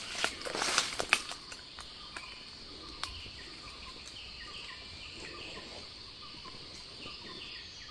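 Rustling and crackling of footsteps through dry leaf litter in the first second, then forest ambience: a steady high insect drone with short falling chirps repeating about twice a second.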